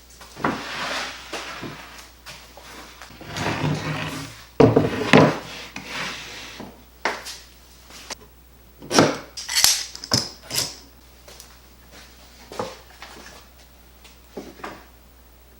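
Plywood pieces being handled on a workbench: irregular sliding and scraping of wood with several sharp knocks, the loudest a little under five seconds in and again around nine to ten seconds.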